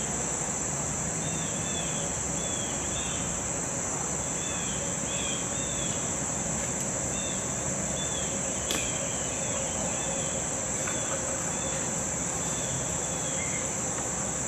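Steady high-pitched chorus of crickets and other insects, with short repeated chirps over it and a single faint click about nine seconds in.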